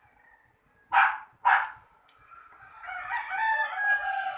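A rooster crowing: one long call starting about two and a half seconds in. It follows two short, loud bursts about a second in.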